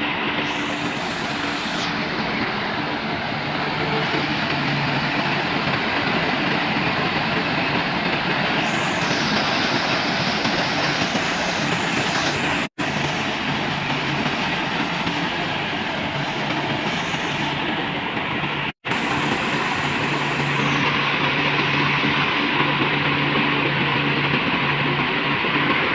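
Engine-driven rice harvesting machine running steadily, a loud even mechanical din with a low engine hum underneath. The sound drops out for an instant twice, about halfway through and again a few seconds later.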